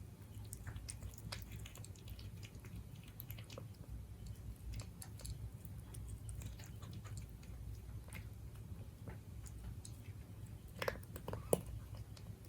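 A cat chewing and biting its food, a quick run of small irregular clicks and crunches. Near the end come two louder, sharper sounds.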